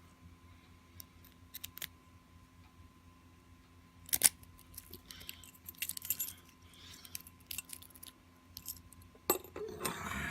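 A key and a padlock being handled and worked: scattered small metallic clicks and clinks, a sharper click about four seconds in, and a longer scraping rattle near the end.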